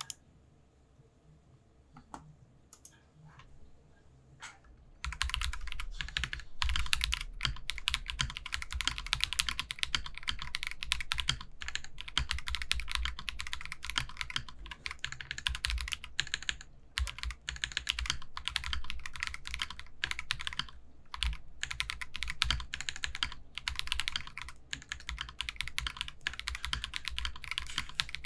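Typing on an Akko 5075B Plus mechanical keyboard with Akko CS Creamy Yellow linear switches. There are a few scattered keystrokes, then fast, continuous typing from about five seconds in, broken by short pauses.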